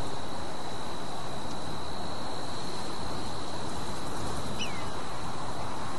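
Outdoor natural ambience: a steady hiss with a thin, steady high-pitched insect buzz, and one short falling bird chirp about four and a half seconds in.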